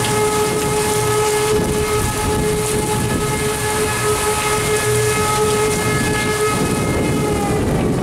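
Fire-brigade alarm siren holding one steady tone, calling out the volunteer firefighters, over heavy rain pouring down.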